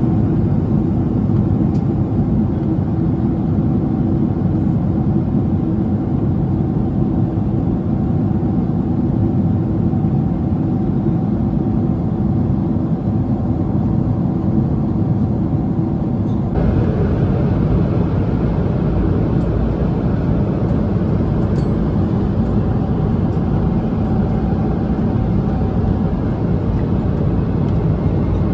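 Steady cabin noise inside a Boeing 777-300ER in cruise: the airflow and GE90 engine noise, dense and low with a faint steady hum. About two-thirds of the way through it shifts abruptly to a slightly different, equally steady cabin noise.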